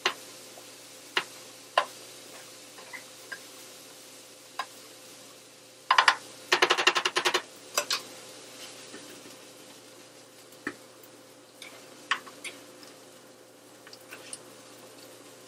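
Cooking utensils clicking and tapping against pans, a spatula working ground beef in a skillet, with a quick run of clicks about six seconds in.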